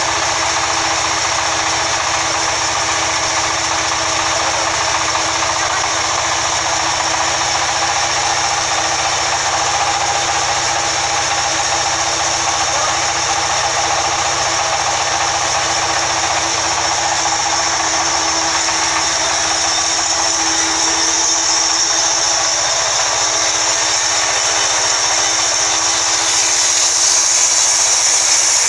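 Sawmill band saw running steadily; near the end a higher hiss rises as the blade cuts into a log.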